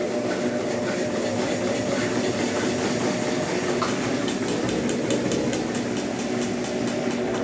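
Consul Facilite 10 kg washing machine running with a steady motor hum. About halfway through, a fast, even ticking joins in.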